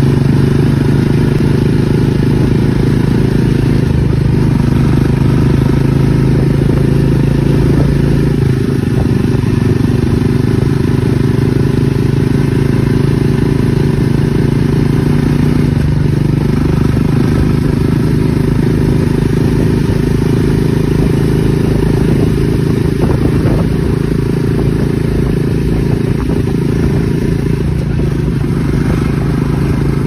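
Jawa Perak's 334cc single-cylinder engine running steadily through its exhaust while the motorcycle is ridden, with wind noise over the microphone.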